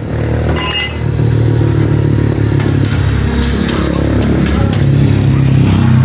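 An engine running steadily: a loud low hum that grows slightly louder near the end, with a few light clicks over it.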